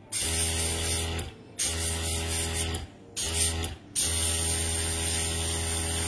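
Small airbrush compressor running with a steady motor hum under the hiss of air from the airbrush, cutting out and restarting three times for a moment each.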